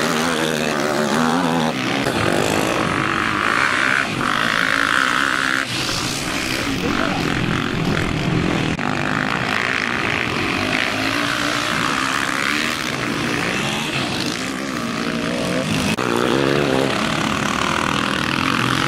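Racing quad (ATV) engines revving on a dirt motocross track, the pitch rising and falling as the riders accelerate through the corners.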